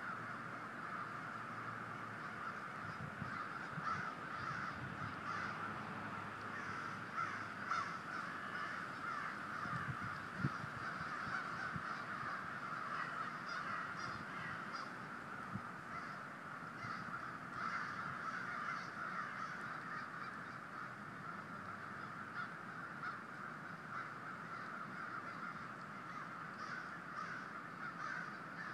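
A large flock of crows cawing continuously, many overlapping calls at once.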